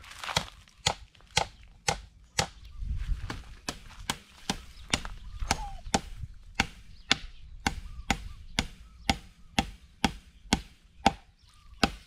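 A steady run of sharp chopping strikes, about two a second, with no change in pace.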